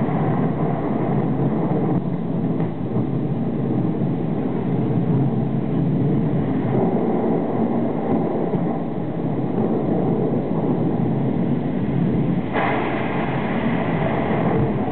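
Concert-arena sound picked up by a camcorder microphone: a loud, steady low rumble of noise with no clear tune. A brighter hiss joins about twelve and a half seconds in.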